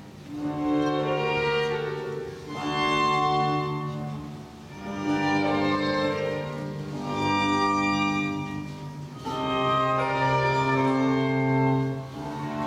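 Orchestral string music played back from a vinyl record on a Clearaudio Statement turntable through a hi-fi system: sustained bowed-string phrases that swell and fade about every two to three seconds.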